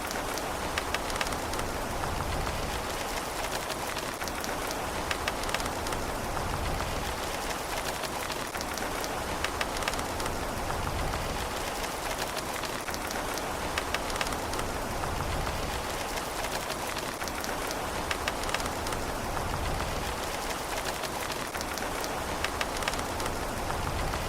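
Steady rain falling, with many individual drops ticking sharply over an even hiss and a low rumble that swells gently now and then; no thunder.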